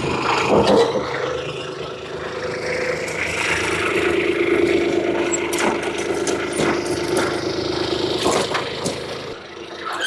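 Heavy digging machine's engine running with a steady tone, with several sharp knocks and scrapes.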